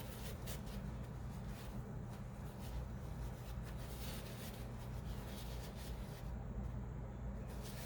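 Faint scratchy strokes of a paintbrush working wet watercolor on paper, over a steady low hum.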